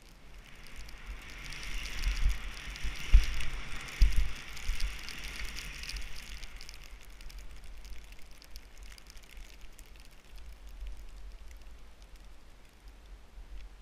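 Skis hissing as they slide over fresh snow, louder in the first half and fading near the end, with wind buffeting the camera microphone. Two sharp thumps about three and four seconds in.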